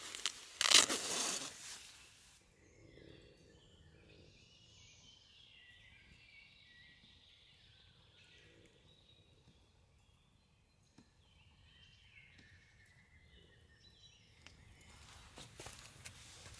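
Small woodland birds chirping and singing in short phrases, with a loud burst of noise lasting about a second and a half about a second in, and some rustling and clicking handling noise near the end.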